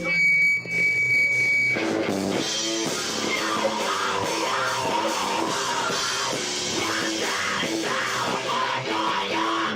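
Live rock band with distorted guitars and drum kit playing loudly, the sound overloading the camera microphone and echoing in the room. A single high note is held for the first second or two before the full band comes in, and the playing stops at the very end.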